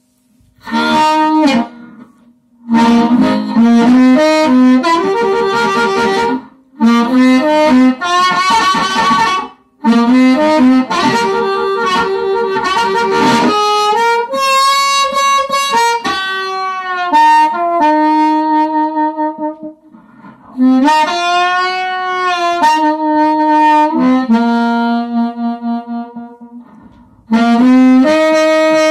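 Harmonica, a Special 20 in A-flat, played through an original 1940s Astatic T3 crystal-element microphone and a Kalamazoo Model Two amplifier. It plays several phrases of held notes, some of them bent, with short breaks between them.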